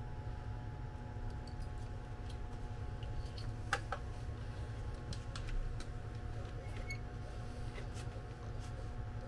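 A few small clicks and taps from handling plastic wire connectors and a handheld motor tester, the sharpest about four seconds in, over a steady low hum.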